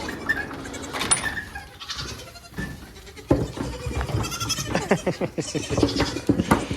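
Baby goats bleating, with a busy patch of knocks and rustling from about three seconds in.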